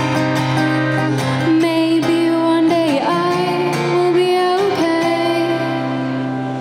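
A woman sings to her own strummed acoustic guitar. In the middle she holds a long sung note over a ringing chord. Near the end the strumming stops and the last chord fades out as the song ends.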